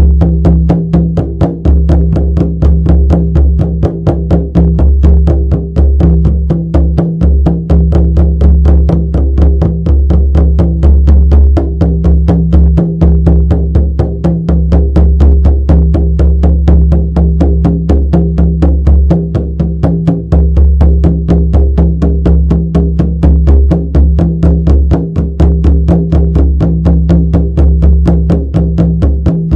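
Shamanic frame drum beaten in a fast, even, unbroken rhythm, each stroke leaving a deep humming resonance.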